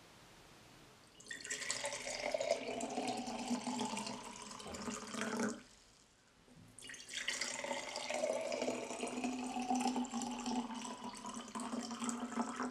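Water being poured into two glass mason jars, one after the other: two long pours with a short pause between them.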